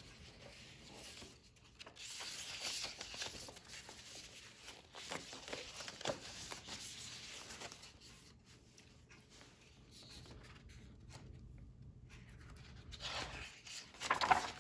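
Paper rustling and soft handling of a large picture book as its cover is opened and the pages are turned, with a few light clicks. A brief voice sound comes near the end.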